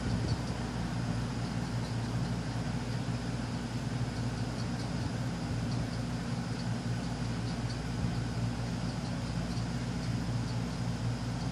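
SMC 36-inch industrial ceiling fan running steadily at medium speed: a steady low motor hum with the rush of moving air.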